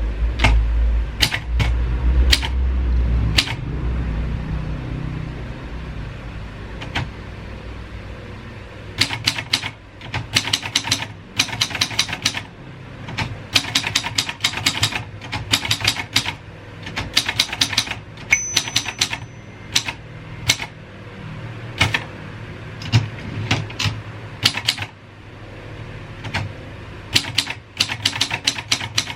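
A 1950s Royal 202 manual typewriter being typed on: sharp key strikes in quick bursts, with short pauses between them. Sparse strikes at first give way to steady, rapid typing from about nine seconds in.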